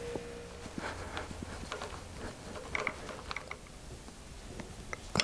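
Scattered small metallic clicks and taps from hand tools working on a motorcycle engine's oil fittings.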